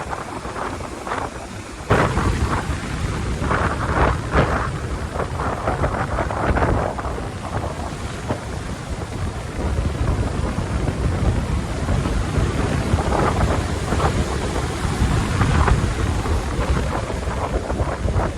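Cyclone-force wind buffeting the microphone with a loud rumble, jumping up sharply about two seconds in and staying gusty.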